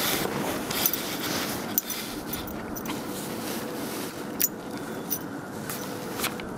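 A dog pushing and digging through deep snow: scattered crunching and scraping with several sharp clicks, over a steady hiss.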